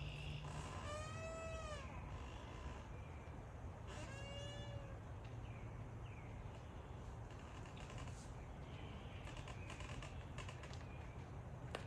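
An animal gives two drawn-out calls about three seconds apart, each rising then falling in pitch, over a steady low rumble.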